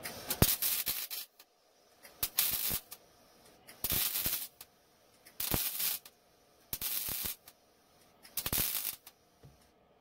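Wire-feed welder laying short spot welds on thin sheet metal: six crackling bursts of about half a second each, roughly one every second and a half.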